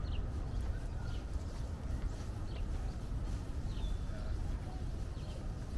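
Outdoor background with a steady low rumble, typical of wind on the microphone while walking, and a few faint, short bird chirps.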